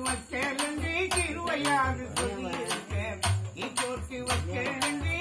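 A male voice singing a Tamil village funeral song in a wavering, sliding line. It is accompanied by a steady beat of low thumps from a brass pot played as a drum, with sharp rattling strokes over it.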